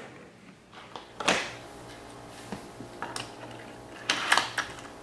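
Small die-cast toy trains and plastic track pieces being handled: a few sharp clicks and knocks, the loudest cluster about four seconds in, over a steady hum that comes in about a second in.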